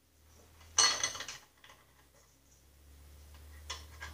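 A sharp metallic clink about a second in, then a few light clicks and taps: small seat-mounting carriage bolts being handled and fitted into the mower's steel seat bracket, over a faint low hum.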